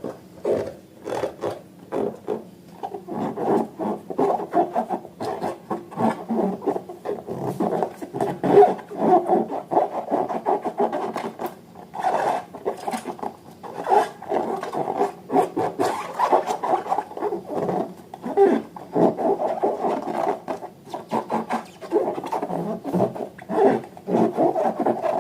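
Rubbing and scraping from hands working balloons and slime, in uneven strokes with small clicks.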